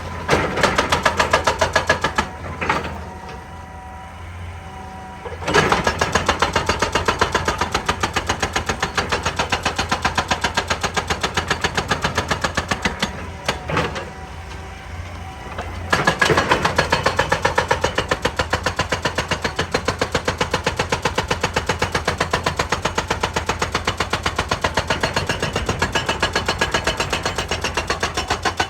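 Excavator-mounted hydraulic breaker hammering rock in rapid, evenly spaced blows, in three long spells. The hammering stops twice for about three seconds, about two seconds in and again about thirteen seconds in, leaving only the excavator's diesel engine running.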